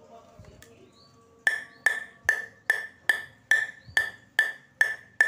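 Regular sharp taps on the face of a Spinlab ZLC table tennis blade (five wood plies with two Zylon carbon layers), about ten of them at roughly two and a half a second, starting about one and a half seconds in. Each tap gives a short bright ringing note; the blade sounds very crisp, with no vibration.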